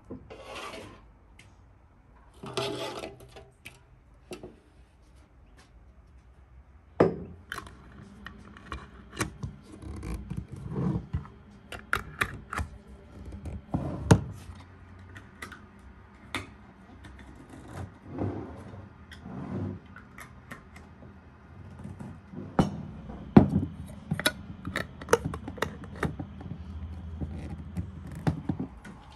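Metal twist-off lids being screwed onto filled glass jars: many short clicks and rubbing scrapes as the lids turn, with glass jars knocking on a wooden table. Near the start, a few scrapes of a metal spoon in a metal basin.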